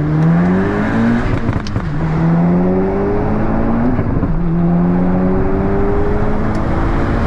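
Stage 2 tuned VW MK6 Golf R's turbocharged 2.0-litre four-cylinder, with a custom turbo-back exhaust, pulling hard through the gears from a roll. The engine note climbs steadily and drops at each upshift, twice, about a second and a half and about four seconds in, revving past 7,100 rpm.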